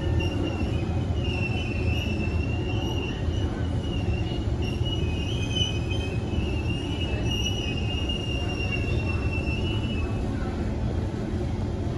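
Interior ride noise of a moving Kawasaki Heavy Industries C151 metro train: a steady low rumble from the running gear. Over it runs a high, wavering squeal from the wheels, which fades out about ten seconds in.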